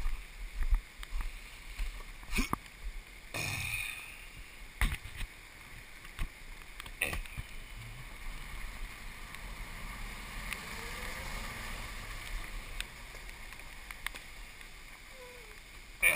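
Golf cart driving over a wet gravel road: a steady running hum with scattered knocks and rattles as it goes over bumps.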